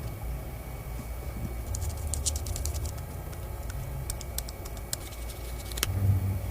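Handling noise from the Xiaomi 15 Ultra photography kit: scattered small clicks and taps, clustered about two seconds in and again past the middle, with a sharper click near the end.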